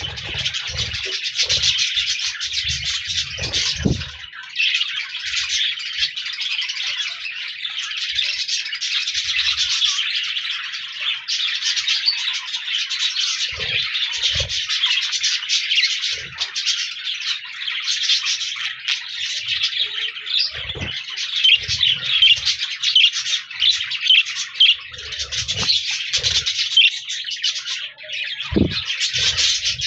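Several budgerigars chattering and warbling together in a dense, continuous stream of chirps. Low thumps come now and then, in the first few seconds, around the middle and near the end.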